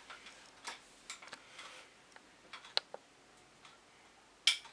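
A spoon clicking and tapping faintly against a glass jar and a bowl as a spoonful of honey is scooped out, with a few scattered small clicks and a slightly louder cluster near the end.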